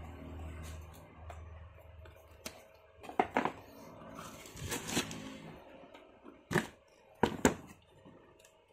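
Tissue paper crinkling and rustling in a cardboard shoebox as the boots are handled, with scattered sharp taps and knocks. The loudest are single knocks about two-thirds of the way in and a quick pair soon after.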